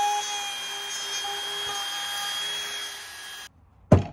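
Compact trim router with a keyhole bit running with a steady high whine as it cuts a keyhole slot in the back of a wooden carving. The whine cuts off suddenly about three and a half seconds in, and a single sharp knock follows just before the end.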